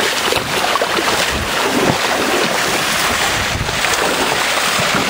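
Shallow stream water rushing over rocks, loud and close to the microphone, with a few low bumps of wind on the microphone.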